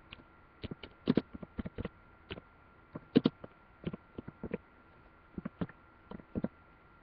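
Typing on a computer keyboard: an irregular run of keystroke clicks, some louder than others, with short pauses between bursts.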